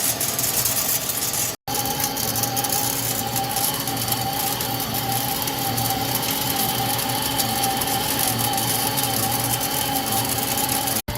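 CNC lathe running steadily, a low hum under a wavering mid-pitched whine with machining noise around it. The sound cuts out for an instant about one and a half seconds in and again near the end.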